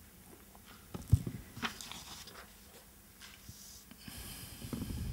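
Handling noise from a handheld microphone and the rustle of paper or book pages: scattered knocks and clicks with one sharp thump about a second in, and a hissy paper rustle near the end.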